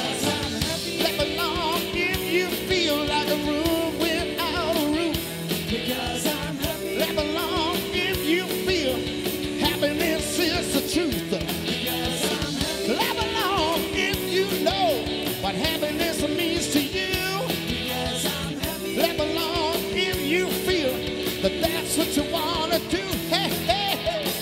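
Live rock band playing: a male lead vocal singing over electric guitars and a drum kit.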